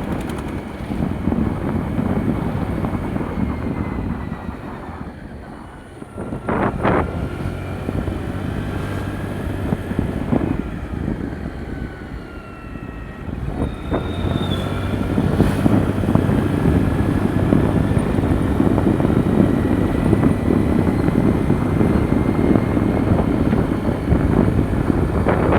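Riding a motor scooter on the road: engine and wind buffeting the microphone as a steady rumble, with a faint whine that drifts in pitch. It eases off briefly about six seconds in and again around twelve seconds, and there are a few short knocks.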